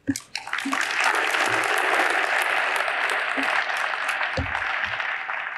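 Audience applauding, beginning about half a second in and starting to fade near the end, with a few low thumps in the last second or so.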